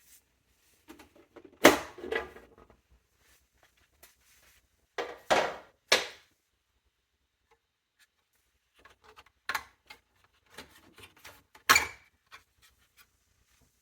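Handling of a small-form-factor desktop computer's case and parts: scattered knocks, clicks and short scrapes of metal and plastic. The loudest knocks come about 2 s, 5 to 6 s and 12 s in.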